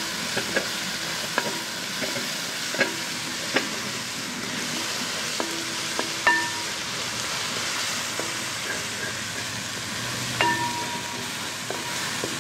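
Crushed ginger, garlic, green chilli and curry leaves sizzling in hot coconut oil in a wide metal uruli, a steady frying hiss. A wooden spatula stirs through it and knocks against the pan every second or so, some knocks leaving a short metallic ring.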